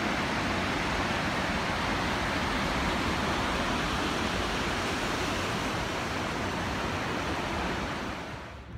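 Fast-flowing river rapids rushing, a steady noise of churning water that fades away just before the end.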